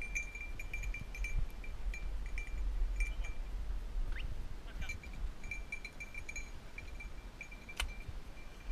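A hunting dog's collar bell jingling in quick, irregular bursts, over a low rumble of wind on the microphone. A single sharp click comes near the end.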